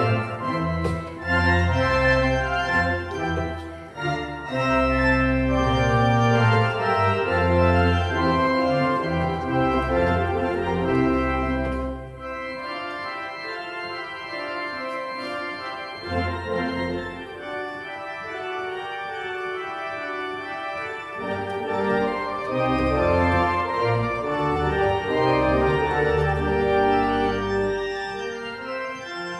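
Church organ played on manuals and pedals: sustained chords over deep pedal bass notes. The pedal bass drops out for a stretch near the middle and returns.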